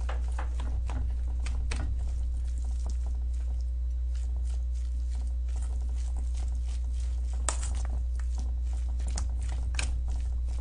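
Hand squishing and mixing sticky rice with seasoned vegetables in a stainless steel bowl: irregular wet clicks and squelches, a couple sharper near the end, over a steady low electrical hum.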